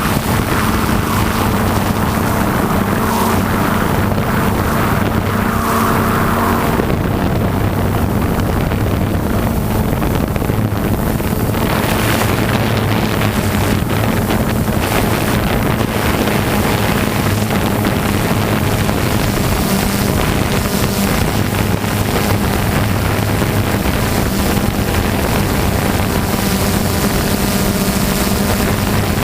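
An engine running steadily with a low, even hum, and wind buffeting the microphone.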